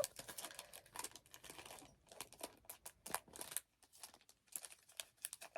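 Faint rustling and scattered light clicks of a small plastic case being handled as a photo book is slipped back inside it.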